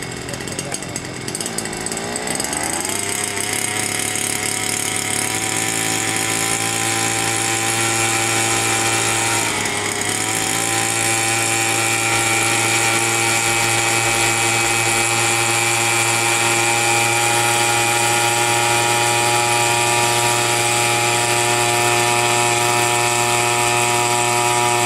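Gasoline engine of a belt-driven gas hexacopter running and spinning its propellers. The revs climb about two seconds in, dip briefly near ten seconds, then hold steady.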